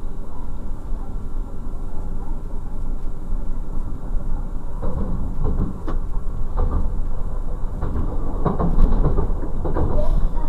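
Class 628 diesel railcar running along the line, heard from the driver's cab: a steady low running rumble with a faint engine hum. From about five seconds in, the wheels knock and clatter repeatedly over rail joints and points.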